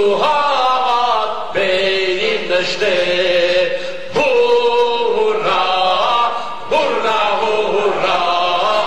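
A man singing or chanting into a microphone in four long, held phrases, each starting sharply and sliding down in pitch.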